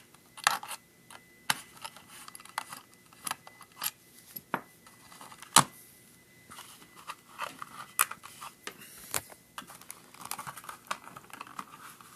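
Small plastic clicks, taps and rattles of a vintage pocket calculator's case being handled and worked apart by hand, with one sharper click about five and a half seconds in.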